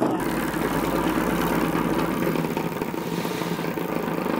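Small single-cylinder oscillating steam engine, 6 mm bore by 8 mm stroke, running at speed on live steam from its lamp-fired boiler. It makes a steady, fast, even chatter of exhaust puffs and moving parts.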